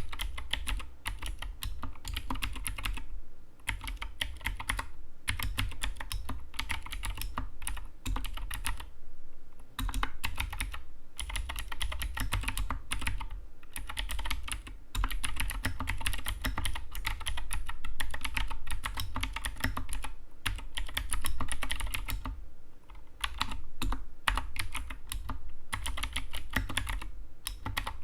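Fast continuous typing on an Anne Pro 2 mechanical keyboard: dense runs of key clicks and clacks, broken by a few short pauses.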